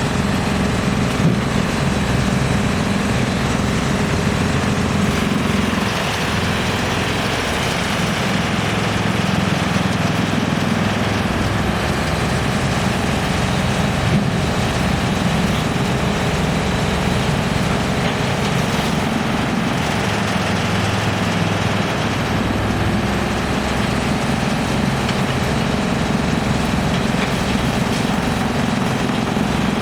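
GX2113 high-capacity wood chipper running steadily, a loud continuous mechanical drone that dips slightly about six seconds in.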